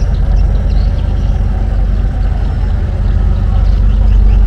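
A river taxi boat's engine running steadily under way, a deep, even drone heard from on board.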